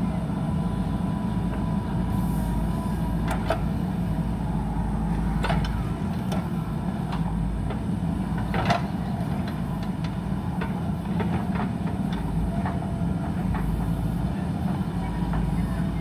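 JCB backhoe loader's diesel engine running steadily while the rear backhoe arm and bucket work the soil, with a few sharp knocks from the machine, the loudest about nine seconds in.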